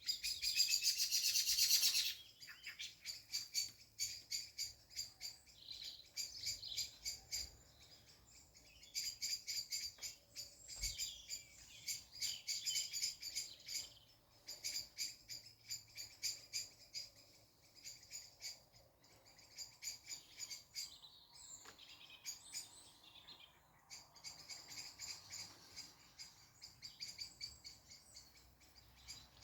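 Songbirds singing: phrases of rapid, high-pitched chirping notes a few seconds long, repeated with short gaps. The loudest phrase comes in the first two seconds.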